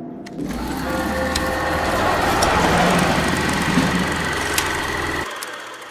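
Edited transition sound effect: a swelling noisy rush over a steady low hum, with scattered sharp clicks, that cuts off suddenly about five seconds in, followed by a few quick clicks.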